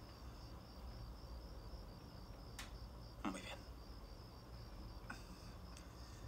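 Faint crickets chirping in a steady, even pulse over a low hum, with a brief soft sound about three seconds in.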